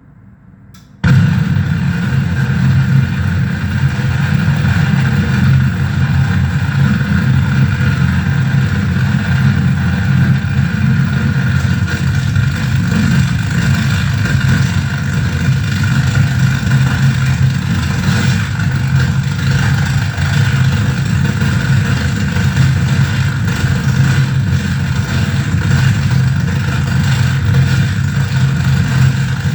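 Harsh electronic noise from a mixer-feedback noise rig: a dense, steady wall of sound, heavy in the low end, that cuts in suddenly about a second in and holds without letting up.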